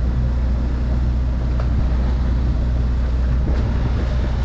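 A sailboat's engine running steadily while motoring at sea, a constant low hum under a rush of wind and water.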